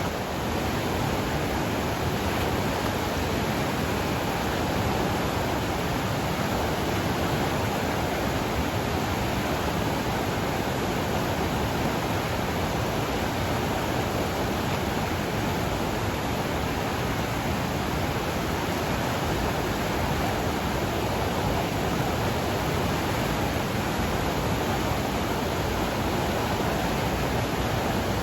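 Rushing water of a mountain river in flood, swollen with runoff, as a steady, unbroken rush.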